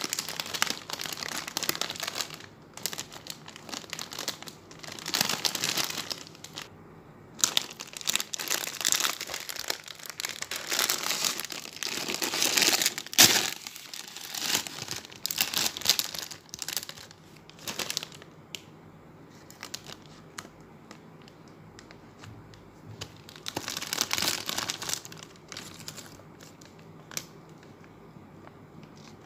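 Foil-lined Cheetos snack bag crinkling in bursts as hands handle it and tear it open, with one sharp crack near the middle.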